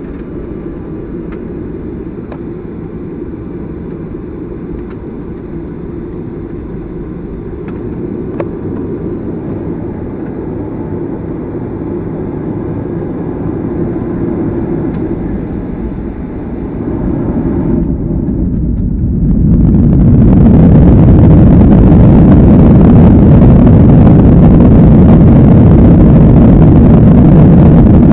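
Cabin noise aboard a Boeing 737-800 with its CFM56-7B turbofan engines at low taxi thrust as it lines up on the runway. About 17 seconds in the engines spool up and the sound swells over a few seconds to a loud, steady rush as takeoff thrust is set for the takeoff roll.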